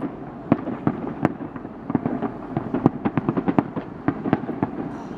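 Fireworks display going off: a rapid, irregular string of bangs and crackling pops over a steady rumble, bunching up most densely in the middle.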